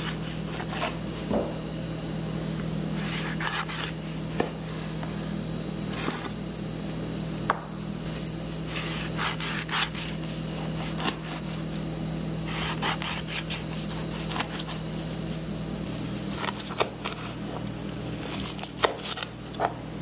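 Chef's knife slicing through a seared steak, its blade scraping and tapping on the cutting board in a series of short strokes, over a steady low hum.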